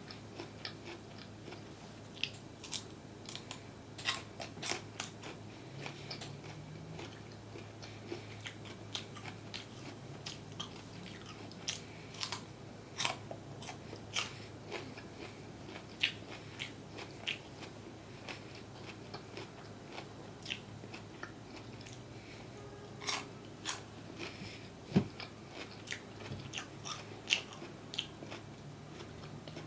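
Close-miked ASMR eating sounds: a person biting and chewing crunchy food, with many sharp, irregular crunches and wet mouth sounds.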